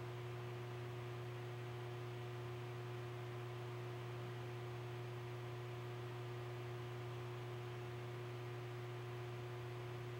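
A steady low hum with a fainter, higher steady tone above it, over faint hiss.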